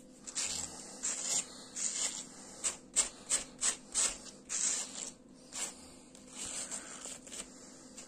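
Wire slicker brush raked repeatedly through the yarn strands of a crocheted toy's hair, a short scratchy stroke about twice a second. The yarn is being brushed out so that it fluffs up into fur.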